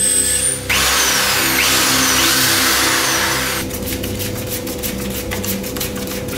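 Power drill boring through a wooden board: a steady motor whine, then a loud rough cutting noise for about three seconds as the bit goes through the wood. Then a fast, even run of clicks as a threaded bolt is screwed into the wood.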